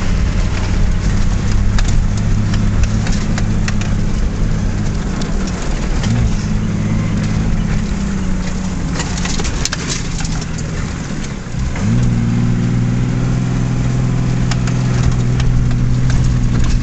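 Nissan Patrol Y60's 2.8-litre turbodiesel engine heard from inside the cab while driving off-road, running steadily under load. Its note dips twice, about six and twelve seconds in, and picks up again. A few knocks from the body over the bumpy track come through around the middle.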